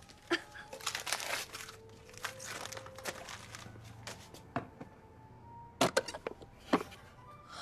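Gift-wrapping paper being torn and crumpled as a present is unwrapped, followed by a few sharp clicks or knocks near the end.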